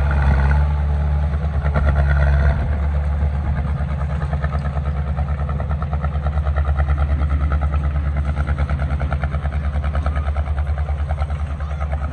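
Heavy-equipment diesel engine running with an even, fast pulsing beat. It is a little louder for the first two or three seconds, then holds steady.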